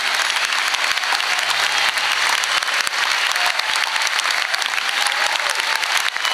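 Large audience applauding steadily, a dense sound of many hands clapping.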